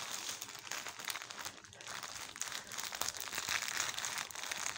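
Orange plastic mailer bag crinkling and rustling irregularly as it is handled and turned over.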